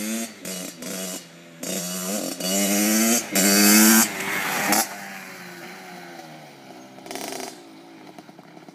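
Kawasaki KX60 60cc two-stroke dirt bike engine revving up in a series of rising pulls with short breaks between them. It is loudest as the bike passes close about four seconds in, then fades away into the distance.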